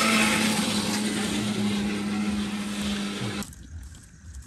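Electric mixer grinder running steadily with a constant motor hum as it grinds spices, then cutting off suddenly about three and a half seconds in.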